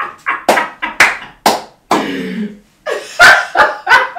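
Hands clapping: a run of sharp single claps about two a second, with a short vocal cry that falls in pitch about halfway through.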